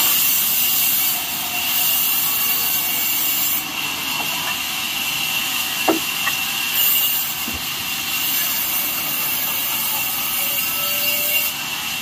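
Large vertical band saw cutting through a wooden log: a steady, high sawing noise that eases and swells a few times as the wood is fed past the blade, with a couple of light knocks.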